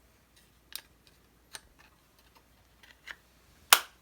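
A handful of separate sharp clicks and taps from small craft supplies being handled on a table, the loudest near the end.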